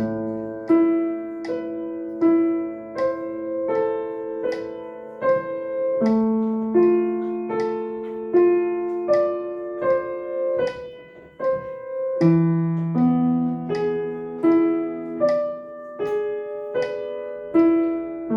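Piano played slowly, left hand alone: a broken-chord accompaniment in A minor, one note about every three-quarters of a second at 78 quaver beats a minute, with the lower notes held and ringing under the following ones.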